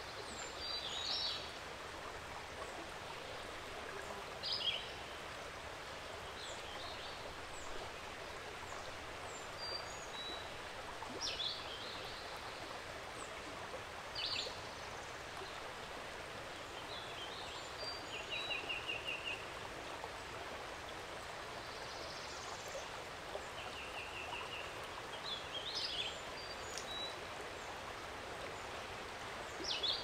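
Creek water flowing with a steady rush, while songbirds call: short high chirps every few seconds and a quick trill twice in the second half.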